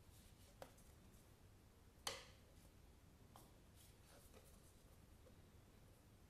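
Faint handling of thick paperboard memory-game cards: a few soft taps and clicks as cards are picked up and laid down, the sharpest a little after two seconds in.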